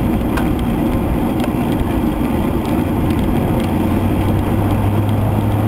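Wind rushing over an action camera's microphone while riding at speed in a group of road cyclists, with road noise beneath. A low steady hum joins about three and a half seconds in.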